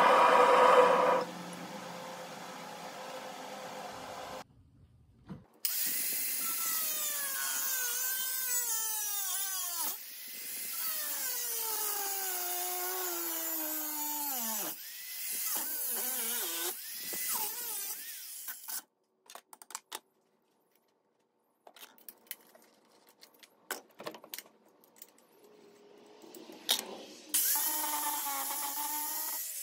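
Angle grinder grinding steel. Its motor whine repeatedly drops in pitch as the disc is pressed into the rebar and recovers as the pressure eases. The grinding stops for several seconds, leaving a few clicks, and starts again near the end. A loud steady hum fills the first second.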